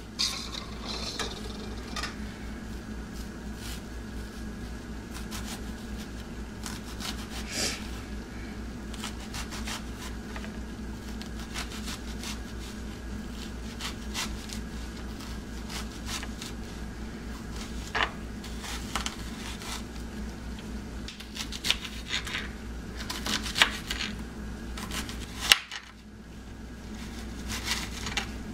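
Kitchen knife slicing an onion on a cutting board: scattered clicks and taps of the blade against the board, coming more often in the last third, over a steady low hum.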